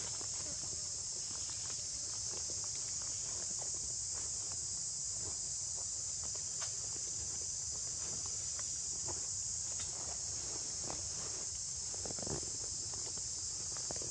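Steady high-pitched drone of insects chirring, with scattered light clicks and rustles of dry leaves.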